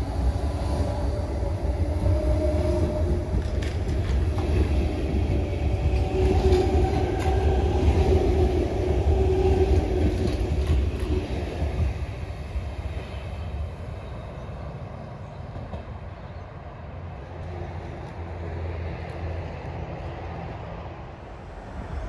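Sydney Trains double-deck electric train moving past close along the platform: a low rumble with the whine of its traction motors, loudest about halfway. After about twelve seconds the sound drops to a quieter, steady train hum.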